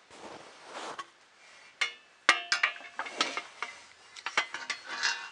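Metal 3D-printer frame parts being handled and fitted together: a soft scrape, then a series of sharp clinks and knocks, some ringing briefly, the loudest a little over two seconds in.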